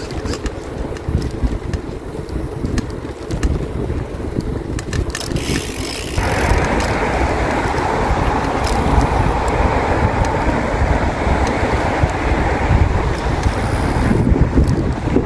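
Wind buffeting the microphone of a moving bicycle, with a louder rushing hiss added from about six seconds in until shortly before the end.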